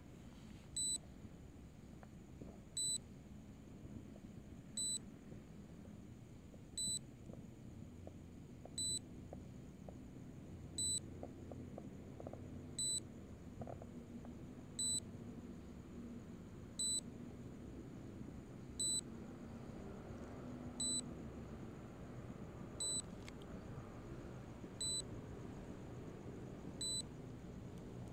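Short high-pitched electronic alert beep repeating evenly every two seconds from the SJRC F11s 4K Pro drone's controls, signalling that the drone is in return-to-home mode. Faint low background noise lies underneath.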